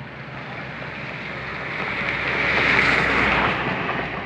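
Mitsubishi Pajero SUV driving past on a concrete highway: its tyre and engine noise swell to a peak about three seconds in, then fade as it moves away.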